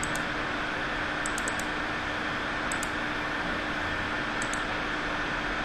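Steady hiss of microphone background noise with a faint hum, and light computer mouse clicks, mostly in quick pairs, three or four times.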